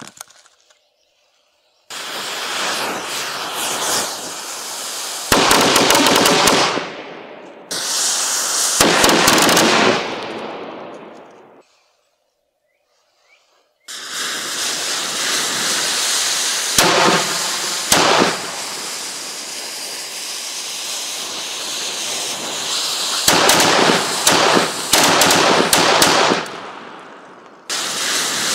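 Miniature multiple rocket launcher firing a salvo of small fuse-lit rockets: a continuous hissing rush of rocket motors broken by loud sharp cracks. Two long volleys with a short silence between them about halfway, and a fresh burst of firing near the end.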